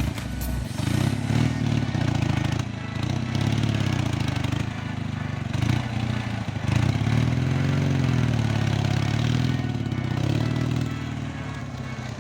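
Ural motorcycle's flat-twin engine running, its pitch rising and falling as the revs change.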